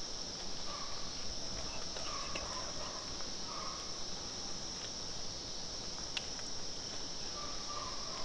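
Forest ambience dominated by a steady, high-pitched insect drone, with a few faint brief calls underneath.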